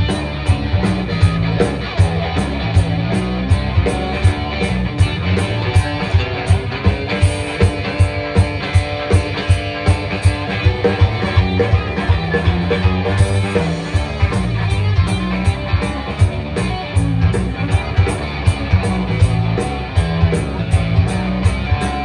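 Live country rock band playing: electric guitars over bass and drums, with a steady beat about twice a second.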